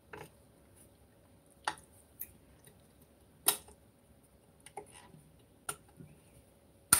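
Metal parts of an industrial sewing machine clicking and knocking as a part is worked back into its seat: about five sharp clicks a second or two apart, with faint ticks between them.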